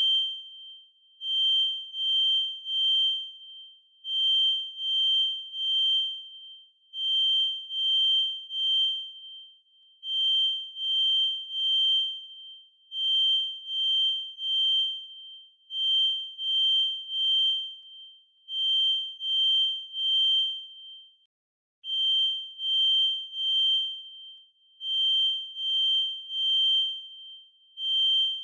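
Kidde FireX i4618AC smoke alarm's piezo horn sounding its full alarm: a shrill single-pitch beep repeated in groups of three, each group about every three seconds. This is the temporal-three evacuation pattern that signals smoke has been detected.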